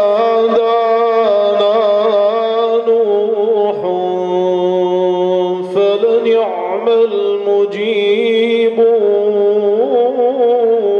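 A man chanting in the slow, melismatic style of Quran recitation: long held notes with wavering ornamented turns.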